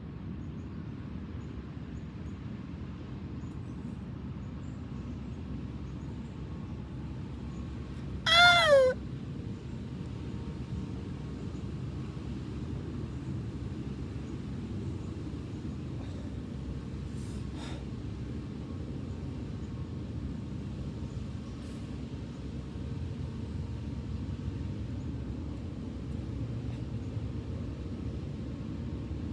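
A single short call, falling in pitch, about eight seconds in, over a steady low background rumble.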